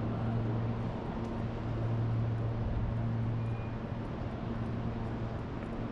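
City street traffic with a steady low hum running under it.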